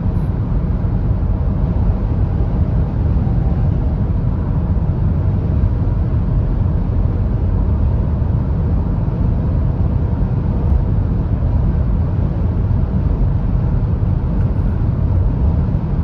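Steady low rumble of road and wind noise inside the cabin of a Hyundai Tucson hybrid cruising on the motorway at about 130 km/h.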